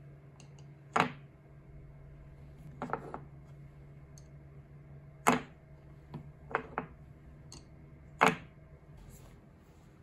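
Wooden chopsticks and a glazed ceramic chopstick rest clicking and knocking against a workbench top as the chopsticks are set down and the rest tips onto its side: about seven sharp taps, three of them louder, over a steady low hum.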